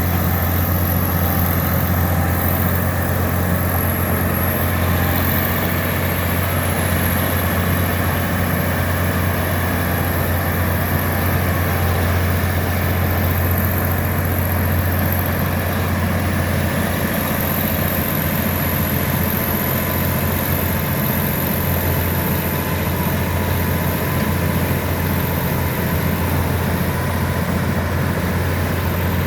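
Bulldozer's diesel engine running steadily, a deep even drone that holds its pitch throughout, with a thin high whine along with it.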